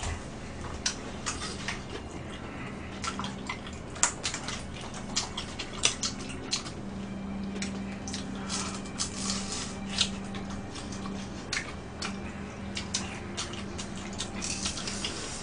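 Two people eating tteokbokki and fried snacks: wet chewing and lip smacks, with scattered sharp clicks of utensils against plastic food containers, over a faint steady hum.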